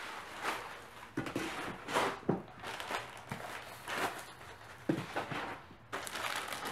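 Plastic wrapping around a laptop rustling and crinkling as it is handled and its foam packing end caps are pulled off, with a few soft knocks. The rustle gets busier near the end.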